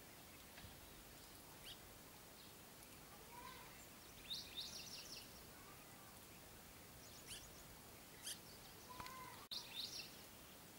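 Faint high bird chirps and twitters over a low steady hiss, with short bursts of quick twittering about four seconds in and again near the end.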